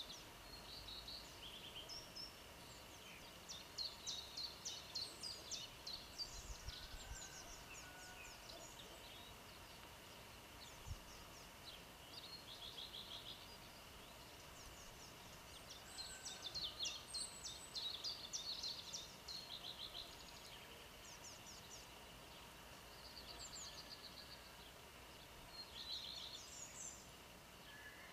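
Songbirds singing: bursts of quick, high chirps and short trills, several phrases coming every few seconds, heard faintly over a steady background hiss.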